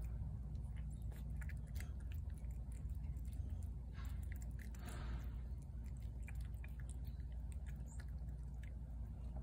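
A cat chewing wet food in gravy off a plate: soft, irregular wet chewing with many small clicks, over a low steady rumble.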